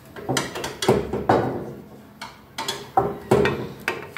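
Stamped sheet-metal support foot of an oil-filled radiator knocking and clinking against the radiator's metal fins as it is worked into place by hand: a series of sharp metal knocks, some ringing briefly.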